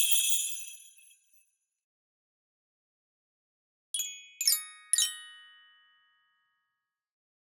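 A high shimmering jingle of small bells fades out in the first second and a half. After a pause come three quick bright chime strikes about half a second apart, each ringing on and dying away.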